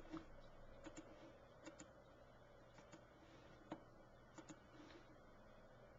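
Faint, scattered clicks of a computer mouse, roughly one a second at irregular spacing, over near-silent room tone.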